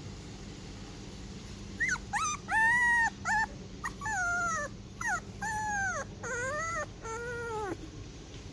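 Labrador puppy whining: a run of about ten high cries beginning about two seconds in, each arching up and then falling in pitch at its end, the last one lower and longer.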